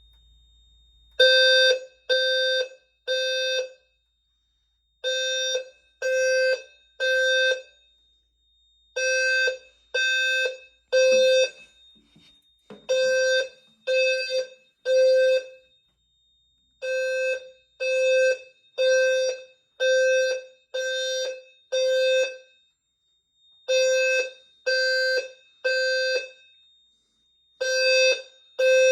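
Fire alarm system sounders going off in the temporal-three evacuation pattern: three tone pulses about a second apart, a pause, then again, over and over. The alarm has been triggered by a smoke detector test. A faint steady high tone runs underneath.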